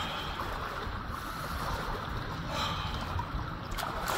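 Wind rumbling on the microphone, with small waves lapping at a lake shore. Near the end comes a hand splash in shallow water.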